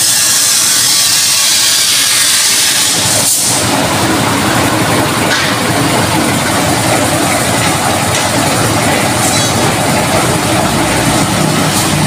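Automatic paint mixing machine running steadily, shaking a closed can of freshly tinted wall paint to blend in the added colourant. About three seconds in its sound briefly dips, then goes on with a deeper rumble.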